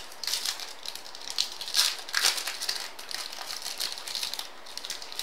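Baseball trading cards being flipped through by hand: a run of quick, papery slides and flicks of card stock, busiest about two seconds in.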